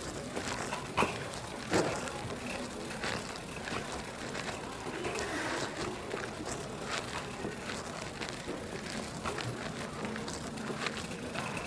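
Grocery store background noise with scattered clicks and rustles, two sharper knocks about a second and two seconds in.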